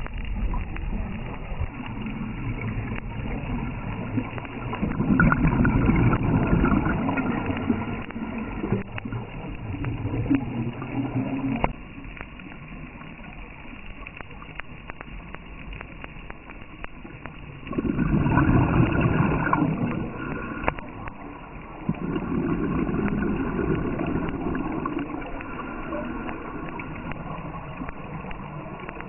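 Water noise, steady and rumbling, rising in several louder surges of two or three seconds each.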